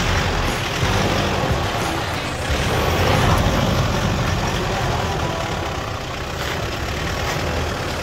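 A four-wheel drive's engine working under load as it crawls up and over a deep rut, the revs rising around the middle.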